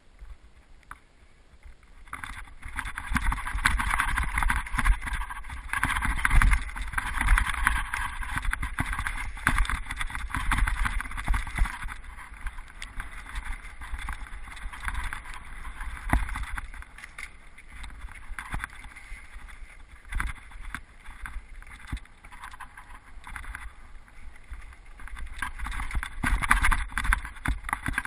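Mountain bike rattling and clattering as its tyres run over a rocky, stony trail, with wind rumbling on the microphone; it starts about two seconds in and keeps up with many small knocks and rattles.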